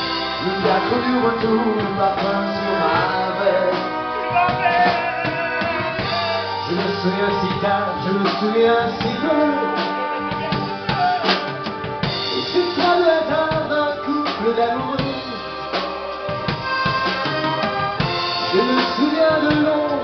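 Live dance-band music: keyboard and accordion playing a melody over a steady drum-kit beat.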